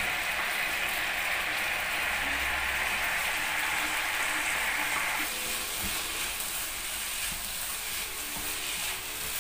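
Diced carrots, corn and green beans sizzling loudly as they are tipped into a hot pan of beef juices, then stir-fried with a wooden spatula. The sizzle drops off about five seconds in.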